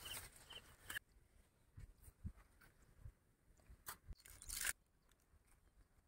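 Near silence, with a few faint crackles and one short rustle about four and a half seconds in: dry maize husks being handled.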